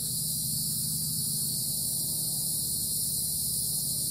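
Steady high hiss over a low hum, with no distinct sounds: background room noise.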